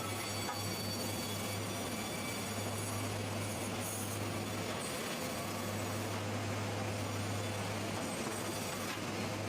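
Sawmill machinery running: a steady mechanical noise with a low hum that briefly drops away about five seconds in.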